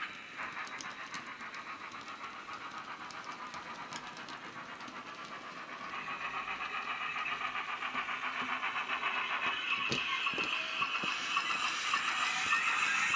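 Model steam locomotive sound: the Wheeltappers sound project on an ESU LokSound micro decoder, played through the OO-gauge GWR 15XX pannier tank's built-in speaker, gives an even, steady rhythm of exhaust chuffs as the engine hauls a train of wagons. There are a few light clicks from the running wagons, and the chuffing grows louder from about halfway through as the loco draws near.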